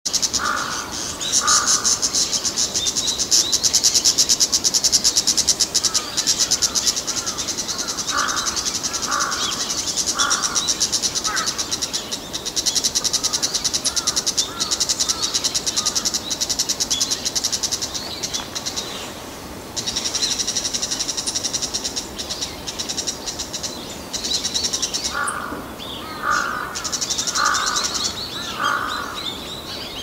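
Female bull-headed shrike giving harsh alarm calls in short runs: a pair at the start, a run about a third of the way in, and several near the end. Behind them is a steady, high, fast-pulsing buzz.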